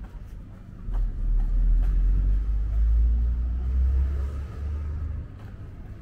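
A car passing along the street, a low rumble that swells about a second in and fades near the end. Faint footsteps tick about twice a second.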